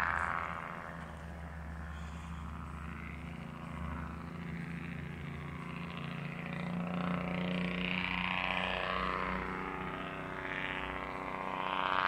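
Vehicle engines humming steadily from highway traffic, swelling a little partway through.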